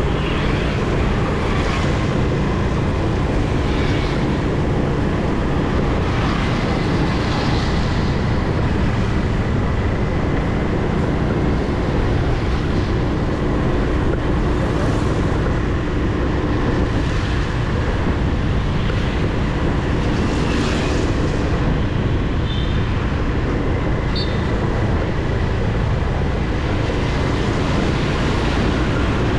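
Steady, loud street traffic noise mixed with wind buffeting the microphone, with brief brighter swishes every second or two.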